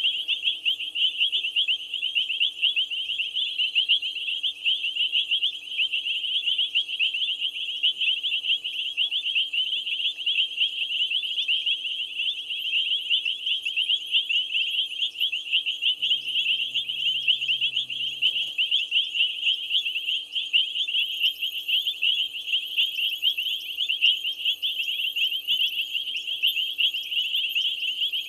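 Dense night chorus of frogs and insects at a waterhole: many high, rapid chirping calls overlapping into an unbroken trill, with fainter faster pulsing above it. A faint low hum comes in briefly about two-thirds of the way through.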